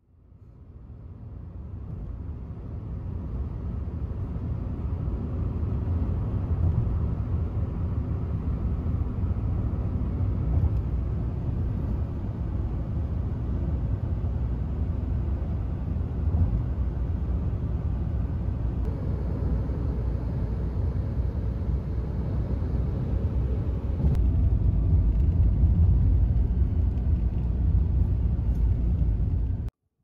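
Road noise heard inside a car cruising on an expressway: a steady low rumble of tyres and engine that fades in over the first few seconds, gets louder about 24 seconds in, and cuts off suddenly near the end.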